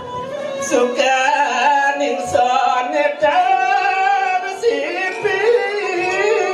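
Music: a voice singing long, wavering held notes over instrumental accompaniment, with short low beats at uneven intervals.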